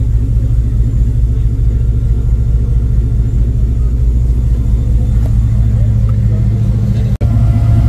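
Loud deep bass from a car-audio system with a wall of subwoofers: a steady low rumble with a fast pulsing pattern riding on it. It drops out for an instant about seven seconds in.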